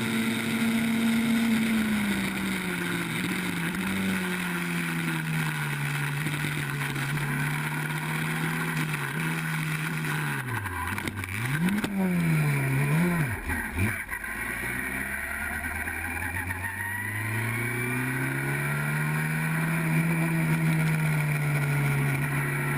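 Race car engine running, its pitch sagging slowly at first. Around the middle it rises and falls sharply several times for a few seconds, drops low, then climbs back and holds steady.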